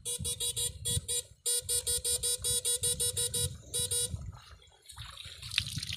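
Electrofishing rig buzzing in quick, even pulses, about five a second, at a steady pitch, stopping about four seconds in, with water sloshing underneath.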